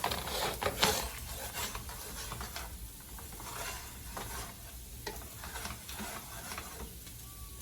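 Egg fried rice sizzling in a hot pan while a spatula stirs and scrapes it, with irregular scraping strokes against the pan bottom. The stirring keeps the rice from burning at the bottom.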